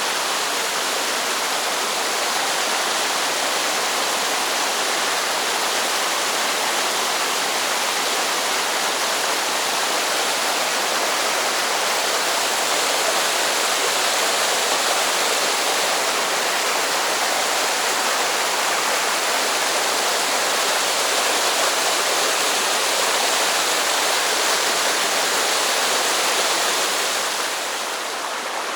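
Mountain stream rushing steadily, a continuous loud water noise that drops slightly near the end.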